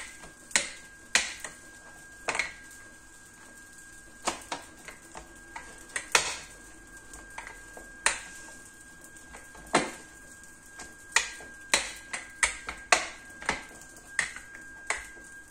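Plastic rolling pin clacking and knocking on a plastic cutting board as dough is rolled out: sharp, irregular clicks, about one or two a second. A faint steady high tone runs underneath.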